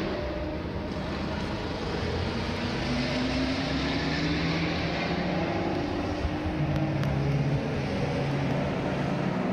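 Historic racing car engines running on the circuit: several engine notes overlap, rising and falling in pitch as the cars accelerate and lift.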